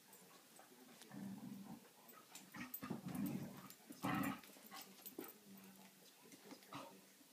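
Border collie and her young pup play-growling at each other, in several short bursts, the loudest about four seconds in.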